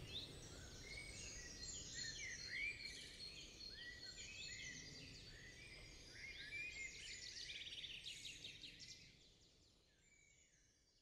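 Faint birdsong from several birds: overlapping chirps and short sweeping whistles over a soft outdoor background hiss, fading away over the last couple of seconds.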